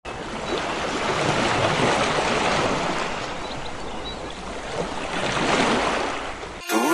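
Sea surf breaking and washing up a sandy beach, a steady rush that swells twice and ebbs. A music track cuts in at the very end.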